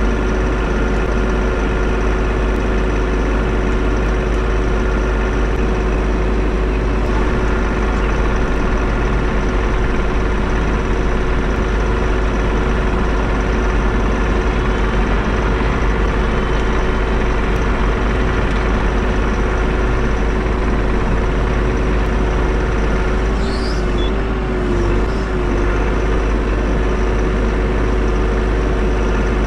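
Bobcat E42 mini excavator's diesel engine running steadily, with a constant whine laid over it. The pitch wavers briefly about five seconds before the end.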